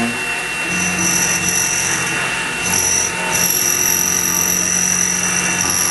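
X2 mini mill running with its end mill cutting aluminium: a steady machining whine over a motor hum. The cutting sound drops out briefly twice, around two and three seconds in.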